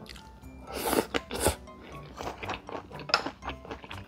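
Close-miked chewing and mouth sounds of someone eating rice and side dishes, with a few louder bites about a second in and again near three seconds, over light background music.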